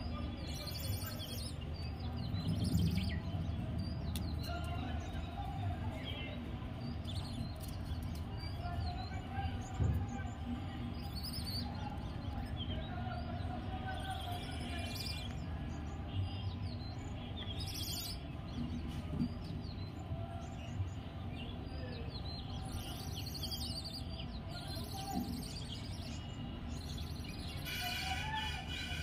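Outdoor ambience: a steady low background rumble with short bird chirps now and then, and faint distant voices or music.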